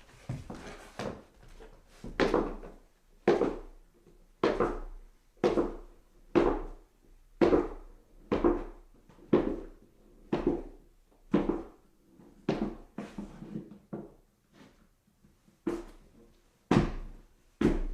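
Footsteps on stairs: slow, steady treads about one a second, each a dull thud.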